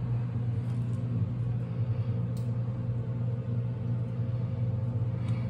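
Steady low rumble of a car interior while driving, an unchanging drone of engine and road noise.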